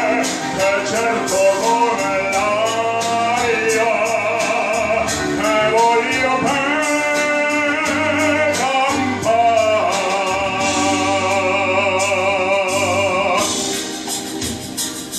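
Male tenor singing in operatic style into a microphone over recorded accompaniment played through a loudspeaker, with vibrato on the held notes. Near the end he finishes on a long held note and stops, and the accompaniment plays on more softly.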